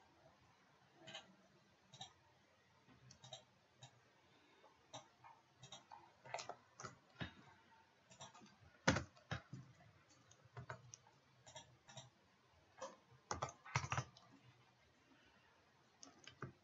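Computer keyboard and mouse clicking: scattered, irregular taps, with a few louder ones about nine seconds in and again around thirteen to fourteen seconds in.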